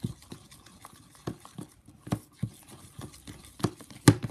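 A spoon stirring thick slime (glue and activator) in a bowl, knocking and scraping against the bowl's sides in an irregular rhythm of about two or three knocks a second, the loudest near the end.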